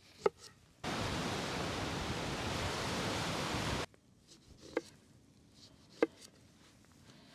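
Knife cutting oranges on a wooden board, heard as a few short sharp knocks. Between the first knock and the rest, a loud steady hiss runs for about three seconds, starting and stopping abruptly.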